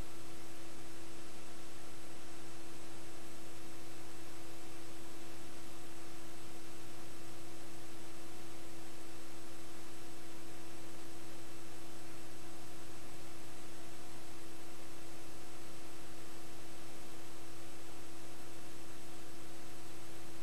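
Steady, unchanging hiss with a constant electrical hum and a held tone, carrying no sound from the game: the noise of a recording with no audio track.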